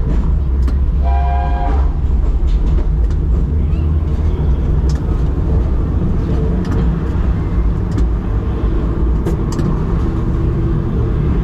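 A 1944 SW6-class tram running along its track, heard from the cab: a steady low rumble of motors and wheels on the rails, with scattered clicks. A short pitched toot sounds once, about a second in.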